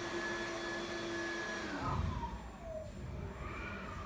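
An electric motor running with a steady whine over a hiss, then switched off about one and a half seconds in, its pitch falling as it spins down and fades.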